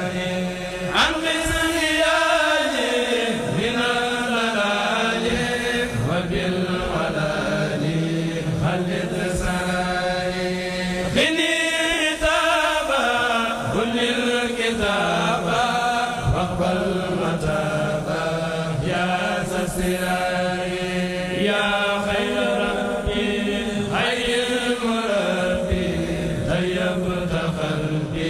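Mouride kourel: a group of men chanting a xassida together in long drawn-out, melismatic phrases. A strong new phrase comes in about a second in and again about 11 seconds in.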